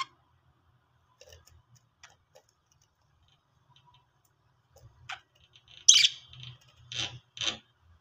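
Budgies chirping: a few faint clicks, then one loud sharp chirp about six seconds in and two shorter chirps just after.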